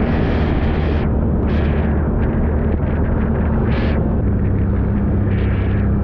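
ATV engine running steadily while riding, with brief hissing bursts of noise every second or two.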